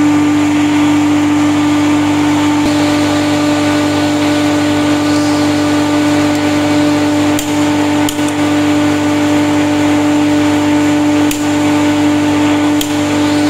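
Loud steady machinery hum with a strong low drone, and several sharp clicks a second or more apart, fitting a click-type torque wrench releasing as bolts on the compressor's end cover reach torque.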